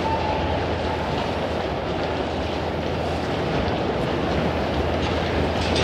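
Railway station ambience: a steady, dense wash of train and concourse noise over a constant low hum.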